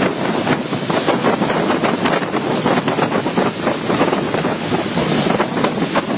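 Floodwater rushing loudly and steadily, a dense unbroken churning noise.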